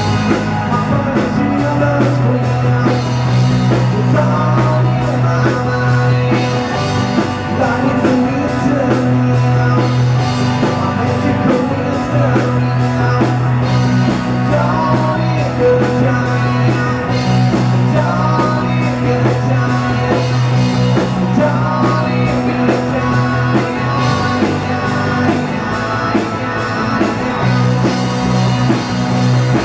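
Rock band playing live: distorted electric guitars over a steady drum-kit beat, with a sung lead vocal.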